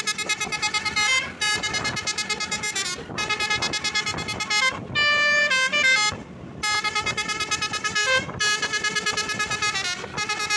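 Bus-mounted 'basuri' telolet horn playing a loud, stepped multi-note tune in phrases of one to two seconds, with a fast flutter on the notes and a short break about six seconds in.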